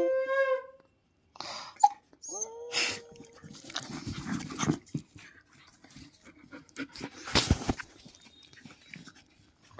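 Siberian husky puppy's drawn-out, wavering howl-talk trailing off just under a second in, then a short whine a moment later. After that come scattered rustling and bumps as the puppy moves against the phone, with the loudest knock about three quarters of the way through.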